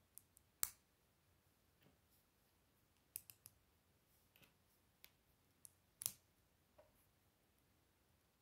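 Small plastic Lego pieces clicking as they are handled and snapped together: scattered sharp clicks, the loudest about half a second in and about six seconds in, with a quick run of three near three seconds in.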